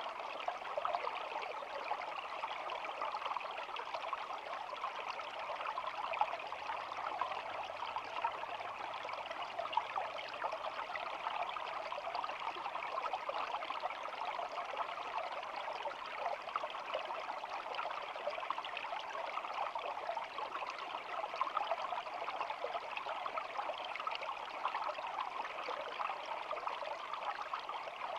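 Shallow stream babbling steadily, a continuous trickling water sound.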